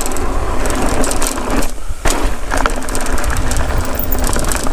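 Mountain bike rolling along a dirt singletrack, with wind rumbling on the camera microphone over tyre noise and many short clicks and rattles from the bike. The noise dips briefly about two seconds in.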